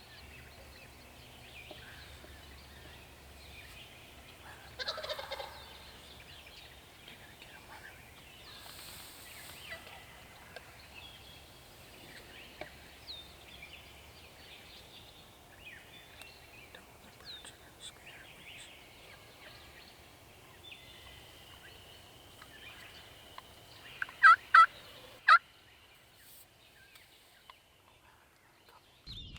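Wild turkey gobbling, with a rattling gobble about five seconds in, over faint songbird chirps. Near the end come three loud, short calls in quick succession.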